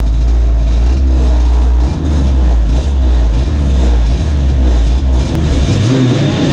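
Race-tuned Lambretta two-stroke scooter engines idling on the starting grid, the nearest engine giving a loud, steady low drone. Near the end the revs rise and waver as the start lights come on.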